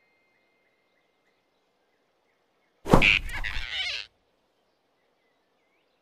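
Cartoon grab sound effect as a big rabbit snatches a flying squirrel: one sudden thunk about three seconds in, followed by a rushing swish that lasts about a second and cuts off.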